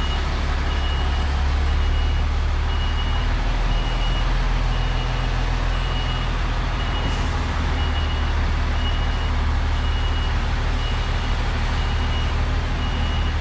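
Reversing alarm of an articulated lorry beeping about once a second, a single high tone, over the steady low drone of the lorry's diesel engine as it reverses.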